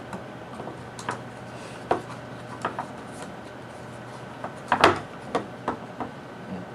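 Scattered clicks and light knocks of a GSM alarm controller's snap-latched case, circuit board and backup battery being handled. The loudest is a quick cluster of knocks a little under five seconds in.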